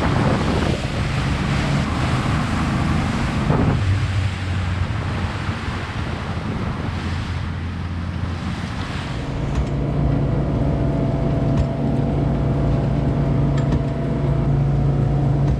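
Boat engine running under wind and water rush. About nine seconds in, the rushing fades and a steady low engine hum is left.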